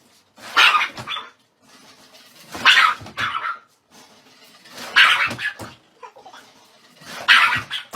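A dog barking four times, short barks spaced about two seconds apart.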